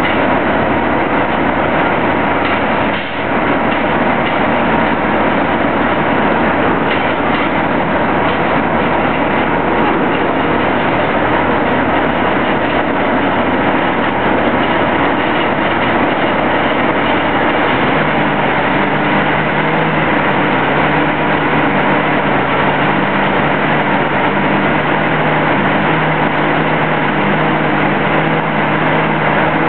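Large diesel engine of a Gottwald AK 850 GT crane carrier running loud and steady shortly after starting, with a brief dip about three seconds in. About eighteen seconds in, its note steps up to a higher engine speed.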